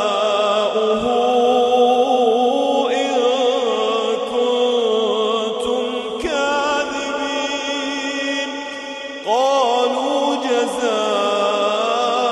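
A solo male reciter chanting the Quran in slow, melodic tajweed recitation, holding long notes with ornamented pitch turns. After a short dip about nine seconds in, a new phrase opens with a rising swell.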